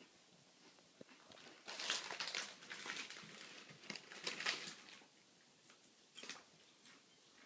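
Rustling and scuffling of a fabric pet play tunnel as a black pet shifts about inside it, in a run of bursts from about two to five seconds in and one short burst near the end.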